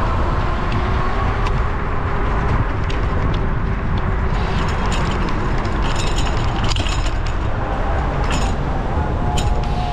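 City street traffic heard from a moving bicycle: a steady, loud rumble of wind and road noise with cars around it. Clusters of sharp clicks and rattles come between about four and seven seconds in.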